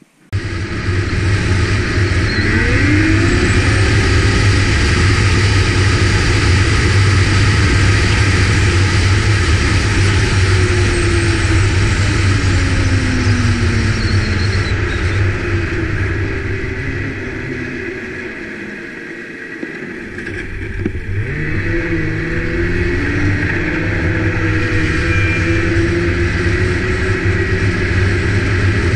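Snowmobile running along a trail, heard from the machine carrying the camera: engine and track noise, with the engine pitch rising and falling as the throttle changes. It starts suddenly, eases off for a couple of seconds about two-thirds through, then picks up again.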